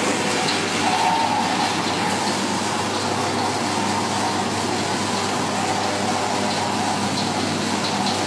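Peanut roaster's gas burner running with a steady rushing hiss, a faint steady hum underneath.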